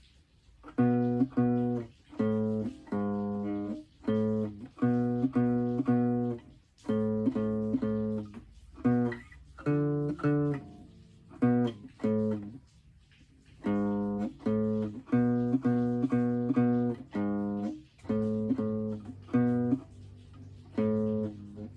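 Guitar chords strummed in short repeated bursts, each chord cut off before the next, with a brief pause about halfway through.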